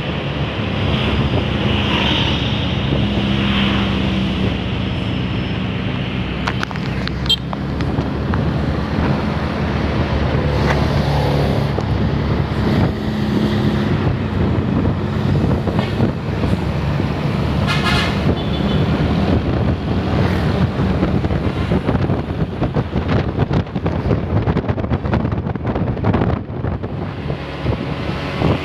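Bus engine running amid road traffic noise, with a few short horn toots.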